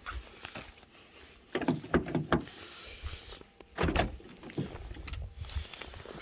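Footsteps on snowy ground, then the car's door handle pulled and the latch releasing with a loud clunk about four seconds in as the driver's door of a 2009 Toyota RAV4 is opened, followed by a few lighter knocks.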